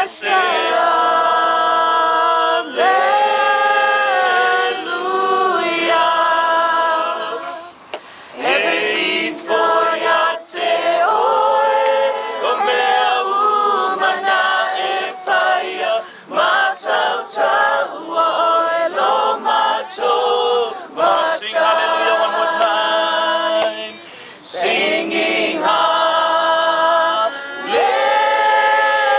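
A group of men and women singing a worship song together, unaccompanied, in long held phrases with short pauses for breath.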